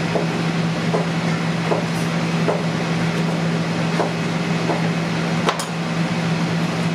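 Steady low hum of kitchen ventilation, with light ticks about once a second from a knife working through a beaver carcass on a cutting board, and a sharper clack about five and a half seconds in as the knife is set down on the board.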